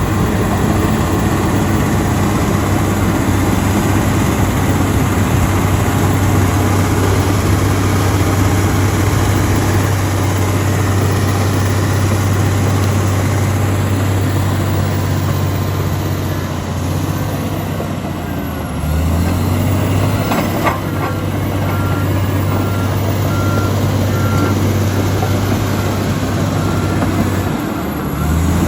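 Komatsu D85EX bulldozer's diesel engine running hard, its pitch sagging and picking back up about two-thirds of the way in and again near the end. A short run of evenly spaced reversing-alarm beeps sounds in the later part, with one sharp clank just before it.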